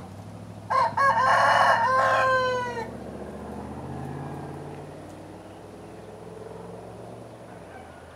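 A Black-breasted Red Phoenix rooster crows once, a loud cock-a-doodle-doo of about two seconds that ends on a falling note. A low steady drone runs underneath, swelling and fading.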